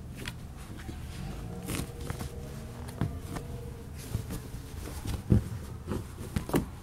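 A puppy digging and scratching at a fabric dog bed with its paws: scattered scuffs and rustles, with a louder thump about five seconds in.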